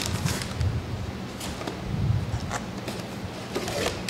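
Crinkling and rustling of a metallized anti-static bag and cardboard packaging being handled as a graphics card is lifted out of its box. The sound comes in short, irregular bursts over a steady low hum.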